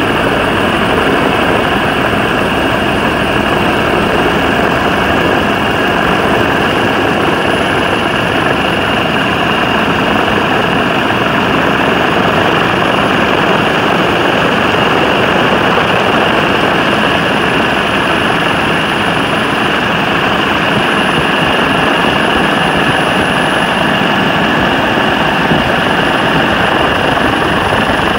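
Helicopter turbine and rotor noise, a loud, steady drone heard from aboard the helicopter in flight.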